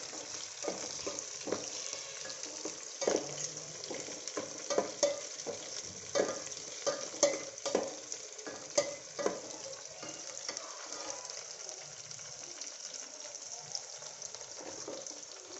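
Chopped onions sizzling in hot oil in an aluminium pot, with a metal spatula scraping and clicking against the pot as they are stirred. The stirring stops about two-thirds of the way through, leaving the steady sizzle.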